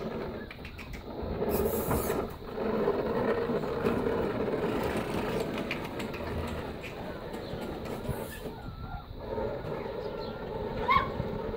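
Walk-behind petrol rotary lawnmower moving across the grass, a steady mechanical rumble and rattle. A brief high squeak comes near the end.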